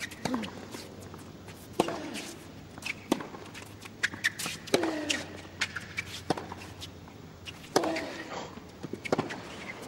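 Tennis rally: racket strikes on the ball about every one and a half seconds, about seven in all. A player grunts on several of the shots.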